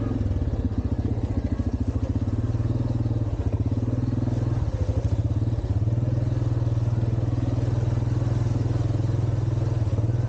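ATV engine running, its note pulsing unevenly through the first half and settling to a steady drone from about six seconds in.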